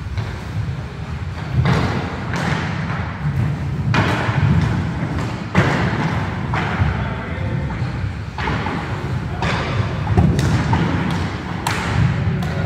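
Roller hockey play on a wooden sports-hall floor: inline skate wheels rolling with a steady low rumble, broken by repeated sharp thuds and clacks of sticks and ball and skates striking the boards, echoing in the large hall.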